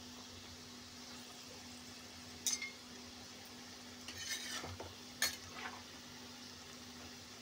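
Onion pakoras deep-frying in hot oil with a steady sizzle. A steel spatula stirs them and scrapes and clinks against the pan, once about two and a half seconds in and again several times between about four and six seconds in.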